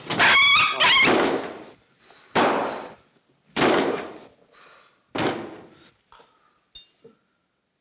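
A small dog yelps sharply at the start, followed by three loud, separate thuds a little over a second apart that each die away quickly.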